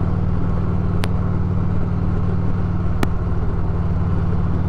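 Touring motorcycle's engine running steadily at cruising speed with a low, even drone and wind noise. Two sharp clicks, about one and three seconds in.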